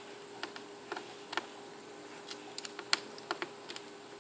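Small screwdriver turning a tiny screw into a laptop's screen frame: light, irregular clicks and ticks, three or four a second, over a faint steady hum.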